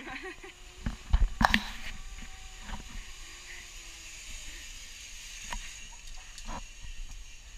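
Zipline trolley pulleys running along the steel cable as a rider slides in to the platform: a steady high hiss that swells as the rider nears. A few loud knocks about a second in.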